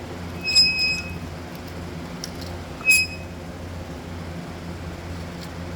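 Two short metal clinks with a bell-like ring, about two and a half seconds apart, from metal parts knocking together while a lawn tractor is being worked on. A steady low hum runs underneath.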